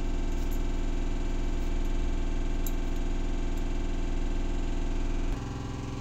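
Steady electrical hum with an even buzzing tone, with no handling sounds over it; its tone changes abruptly about five seconds in.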